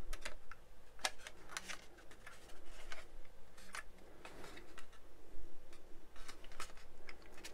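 Irregular light clicks and knocks of hard plastic model-kit parts as a bulkhead is pressed into a fuselage half by hand, with the hand bumping against the camera.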